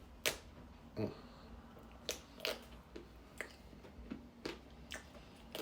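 Biting into a Magnum almond ice cream bar and chewing: its thick chocolate coating cracks in a series of short, sharp crunches, about eight or nine spread over the few seconds.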